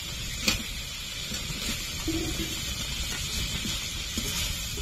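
Masala sizzling in a metal kadai as sliced pointed gourd is tipped in on top of fried potatoes, with a low rumble underneath. A single sharp clink about half a second in.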